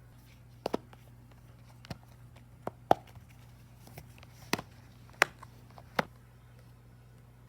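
Sharp clicks and taps from small fidget toys being handled, about eight at irregular intervals, over a faint steady hum.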